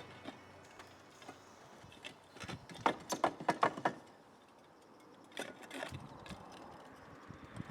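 Clay roof tiles clacking and knocking against each other as they are handled: a quick run of hard clacks about three seconds in, and a few more a little later.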